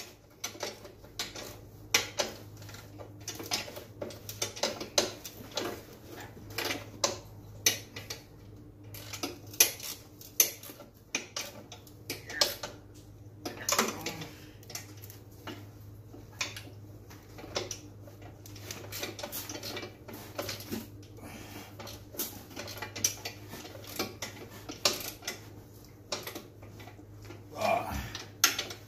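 Irregular metal clinks and knocks of a wrench working the rear axle carrier bolts on a 110cc Chinese ATV while the drive chain is being tensioned. A faint steady low hum runs underneath.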